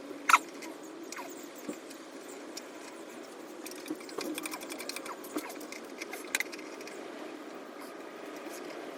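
A small engine running steadily, with scattered clicks and a sharp click about a third of a second in.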